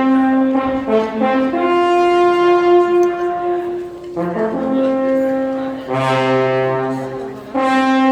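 Alphorns playing a slow tune of long held notes. A lower note sounds under the melody from about six seconds in, giving a two-part harmony.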